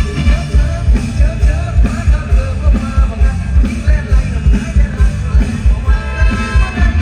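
Live band music over a concert sound system: a steady heavy kick drum about three beats a second under a man singing into a handheld microphone.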